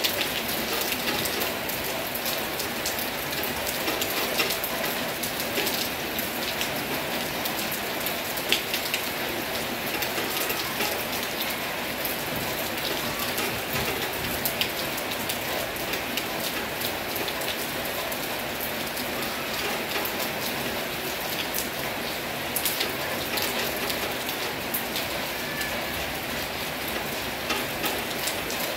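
Heavy rain falling steadily: a constant hiss with many sharp individual drop strikes throughout.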